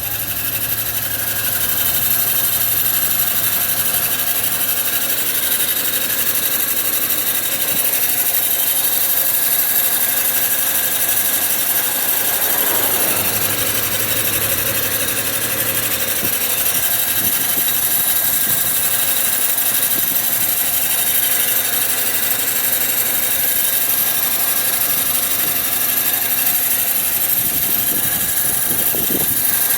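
BMW N54 twin-turbo inline-six engine running steadily, with a noise that showed up after its pulleys were replaced and a crankshaft seal guard was fitted.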